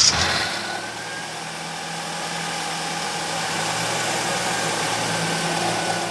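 Car engine just started, its loud start-up burst settling within about the first second into a steady idle.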